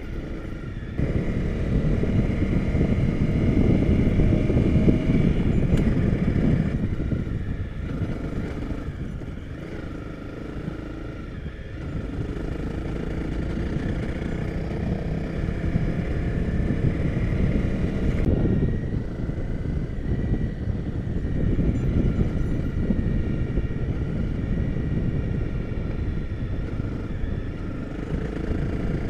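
Honda CRF250 Rally's single-cylinder engine running as the bike rides along a gravel track, mixed with rumbling wind and road noise on the bike-mounted microphone. The sound eases a little about ten seconds in and then builds again.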